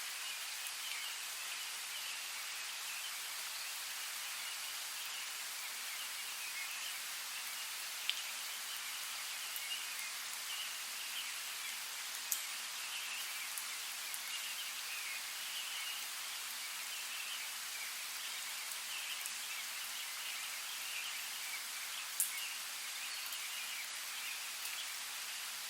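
Steady rain falling in a forest, an even hiss, with three single drops striking close by.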